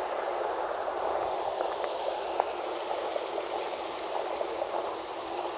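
Running water: a steady splashing, bubbling rush with faint crackling ticks through it.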